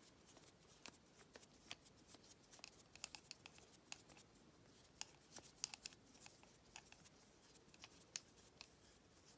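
Faint, irregular small metallic clicks and scratches as the shackle screw is turned into a vintage Lockwood 234 brass padlock body.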